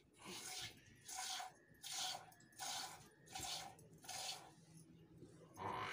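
Hand-milking a buffalo: jets of milk squirting into a steel pail, a short hiss with a slight metallic ring in a steady rhythm of roughly three squirts every two seconds.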